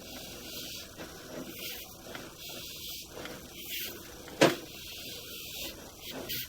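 Sewer inspection camera push cable being pulled back through the pipe: uneven rubbing and scraping handling noise, with one sharp knock about four and a half seconds in.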